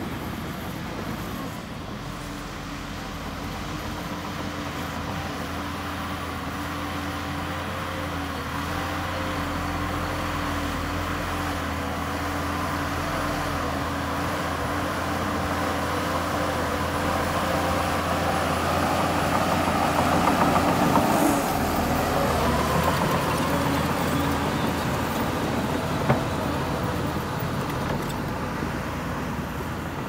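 Shantui bulldozer's diesel engine running steadily while working. It grows louder about two-thirds of the way through, then eases off, with a single sharp click near the end.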